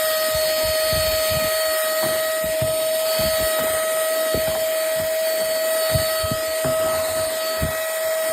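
Duck compact cordless handheld vacuum running with a steady high motor whine and rushing air, sucking up loose sewing threads, with irregular light knocks as the nozzle works over the surface.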